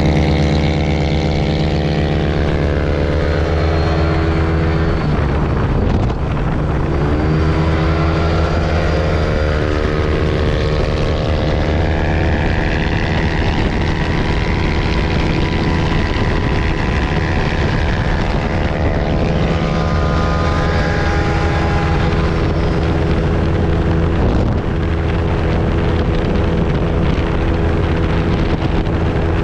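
Yamaha NMAX 155 scooter's single-cylinder engine, fitted with a CRP bolt-on aftermarket exhaust, running hard at full throttle as the scooter accelerates on a speed run. Wind noise on the microphone runs underneath.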